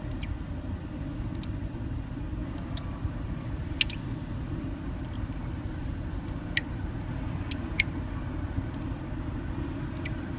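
A steady low rumble with scattered sharp clicks and ticks over it, the loudest about four seconds in and again near eight seconds.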